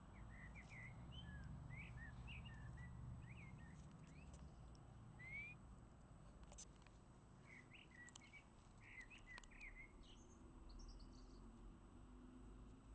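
Faint birdsong: small birds chirping in short, quick phrases on and off, over a quiet background with a low rumble.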